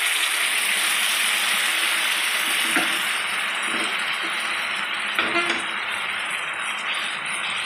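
Loud, steady sizzling as wild mushrooms hit a hot, oily pan of frying masala, with a few light knocks of a wooden spatula against the pan.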